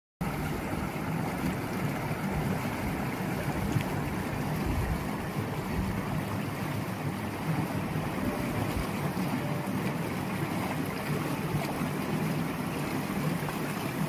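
Shallow river water running steadily over rocks.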